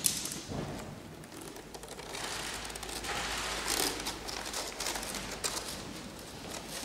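A lamp being handled: scattered light clicks and rustling, with a longer rustle from about two to four seconds in.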